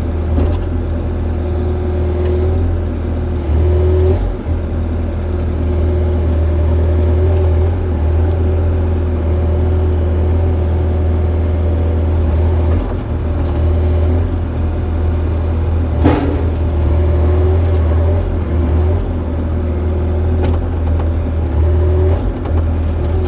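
Excavator's diesel engine running steadily under load, with a single sharp knock about two-thirds of the way through.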